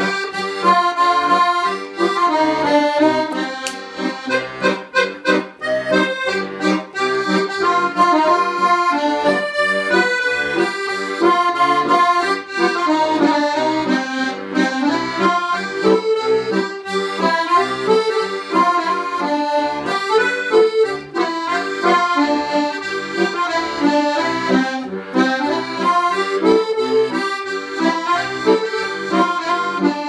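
Piano accordion playing a tune solo: a right-hand keyboard melody over a steady rhythm of bass notes and chords from the left-hand buttons. A few seconds in, the playing turns to short detached notes for a few seconds.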